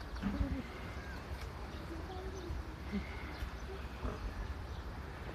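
Outdoor ambience with a steady low wind rumble on the microphone, a few faint distant voices and brief bird chirps.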